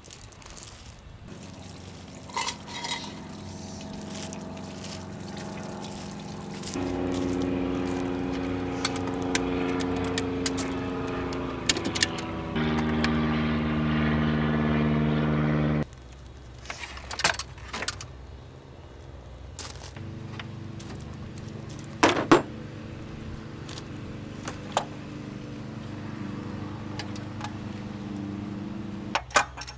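Honda Civic Wagon's D15A2 four-cylinder engine running, its speed stepping up, holding and dropping back several times, with scattered clicks and knocks.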